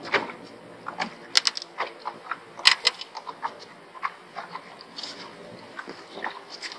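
Irregular light clicks and knocks of a rod, reel and tackle being handled in a small fishing boat as a crappie is reeled in and swung aboard.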